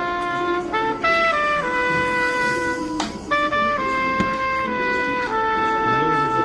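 A Samsung Galaxy S22 ringtone playing from the phone's speaker: a melody of held, brass-like notes that step from pitch to pitch, over faint store background noise. A single sharp click comes about three seconds in.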